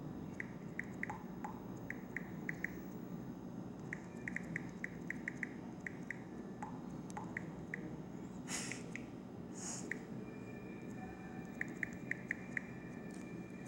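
Smartphone on-screen keyboard clicks: short, sharp ticks in quick irregular runs as a message is typed, over a low steady hum. Two brief hissy sounds come around the middle.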